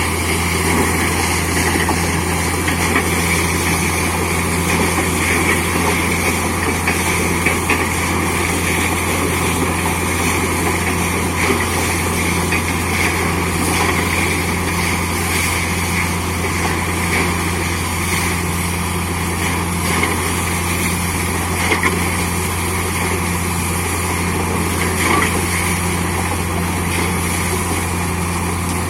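Borewell drilling rig and its air compressor running steadily, a loud constant low engine drone with a hiss of air and machinery over it.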